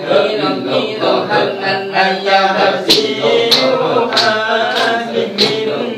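Group of men chanting dhikr together in a Samman ritual, several voices sounding as one. From about halfway, sharp rhythmic accents about every 0.6 s join the chant.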